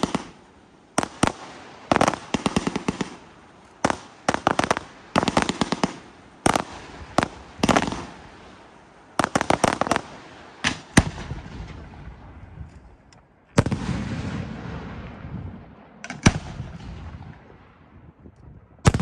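Aerial fireworks bursting: quick clusters of sharp cracks and pops from exploding shells for roughly the first ten seconds. Then two heavier bangs, each followed by a long low rumble as it dies away, and one more bang at the very end.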